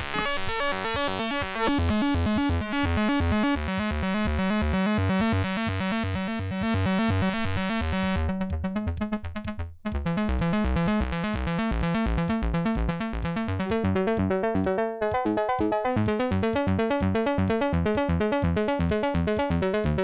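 Make Noise 0-Coast synthesizer playing a fast arpeggiated pattern of bright pitched notes over a pulsing bass. About eight seconds in the tone turns duller, cuts out briefly, then the pattern carries on.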